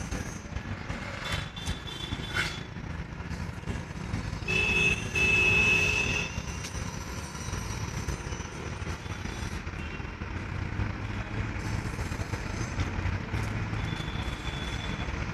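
Road traffic noise: a steady low rumble of passing vehicles, with a vehicle horn sounding twice, a short honk then a longer one, a little under five seconds in.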